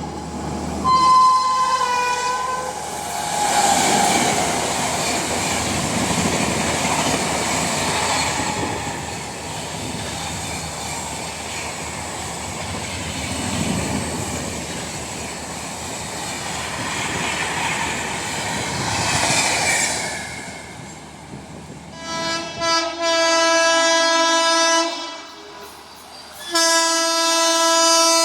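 Express train running past on the rails, a steady rumble and clatter of wheels, after a short horn blast in the first couple of seconds. Near the end a train horn sounds two long, steady blasts.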